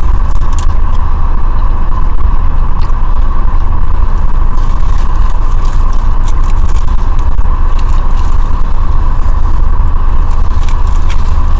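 Steady loud low rumble with a constant hum above it, unchanging throughout, with a few faint clicks and rustles from eating.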